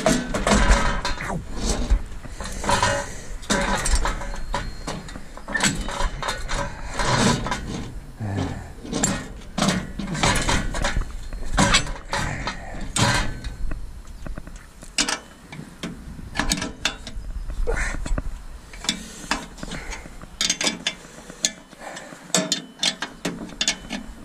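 Hand tools clanking and clicking against metal parts during a repair on a combine harvester: irregular knocks and clicks, denser in the first half, with quicker runs of sharp ticks later on.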